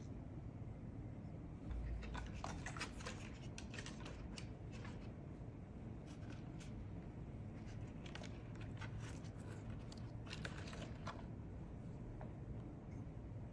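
Light clicks and rustles of household items being handled and set into a woven wicker basket, in two spells, over a steady low room hum, with a soft thump about two seconds in.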